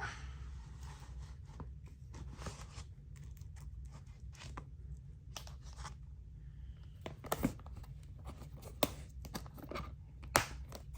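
Handling noises: scattered rustles and scrapes with a few sharp clicks, the loudest about two thirds of the way in and near the end, over a steady low hum.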